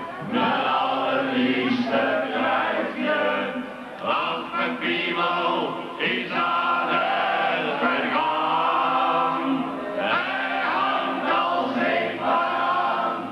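Several men singing a song together, in chorus.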